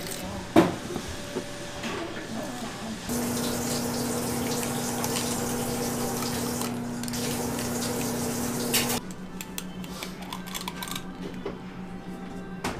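Kitchen work noise: a metal scoop clicks and scrapes against cream and the tub, with one sharp click about half a second in. From about three seconds a steady rushing noise with a hum runs for about six seconds, then stops abruptly and gives way to a quieter hum with light ticks.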